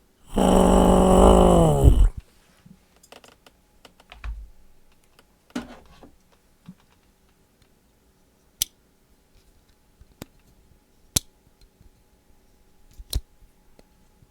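A man's voiced mouth sound effect lasting about two seconds, held on one pitch and then dropping at the end. It is followed by a few scattered sharp clicks.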